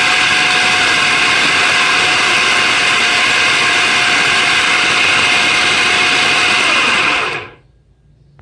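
Electric food processor running steadily, its blade chopping raw boneless chicken with onion and green chillies into mince. It is switched off about seven seconds in and winds down quickly.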